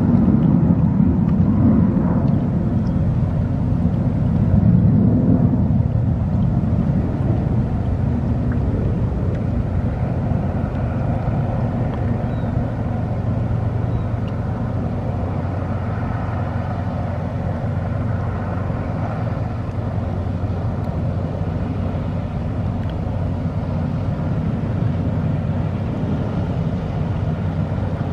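Boat engine running steadily, a low continuous drone with water and wind noise over it, a little louder in the first few seconds.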